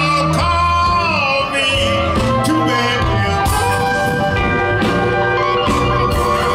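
Live electric Chicago blues band playing an instrumental passage: an amplified harmonica, played into a hand-cupped microphone, leads with held and bent notes over electric guitar, bass and drums.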